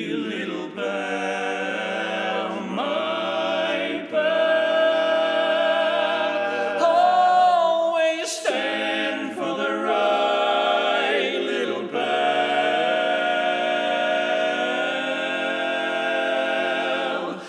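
Male barbershop quartet singing a cappella, four voices holding sustained chords in close harmony, with short breaks between phrases about 4, 8 and 12 seconds in.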